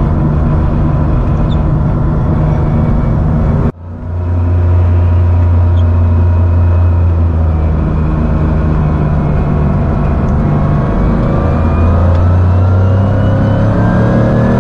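Porsche 911 SC's freshly overhauled 3.0-litre air-cooled flat-six with K-Jetronic injection, heard from inside the cabin, pulling under load on track. The sound cuts out for an instant about four seconds in, then the engine note holds and, in the second half, rises steadily in pitch as the car accelerates.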